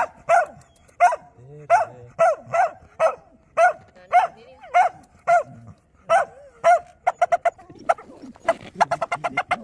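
Samoyed barking repeatedly, single barks about twice a second, then quicker runs of barks near the end.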